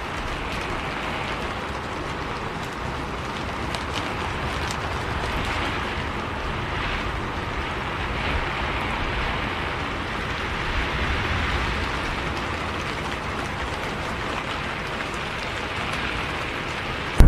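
Steady rain hiss with scattered drop ticks, over a faint low vehicle rumble, as on a bus travelling in the rain.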